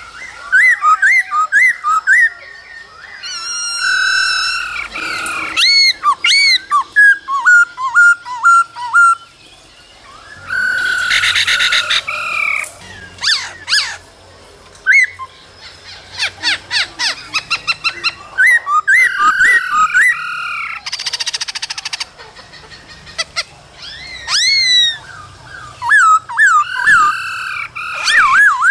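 Black-throated laughingthrush singing a varied song of clear whistled phrases, runs of quickly repeated notes and upward glides, with bursts of harsh rattling chatter between the phrases.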